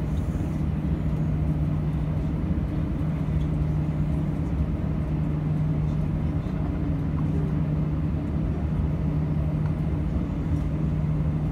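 Steady drone inside an airliner cabin as the aircraft holds on the ground: an even hum with a constant low tone and a rumble beneath it.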